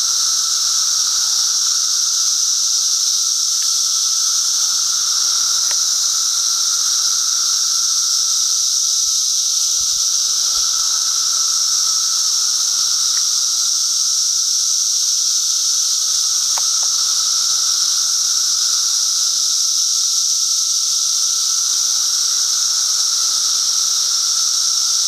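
Dense chorus of Brood XIV periodical cicadas: a loud, steady, high-pitched drone with a weaker, lower hum beneath it.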